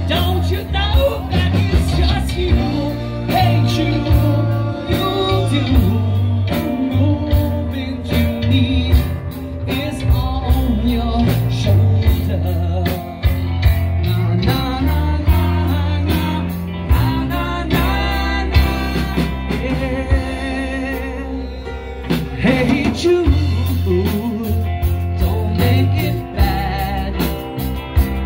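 Live rock band playing: electric guitar, bass guitar, keyboard and drums, with a man singing.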